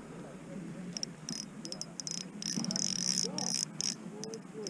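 Spinning reel clicking in quick, uneven runs of high ticks, densest around the middle.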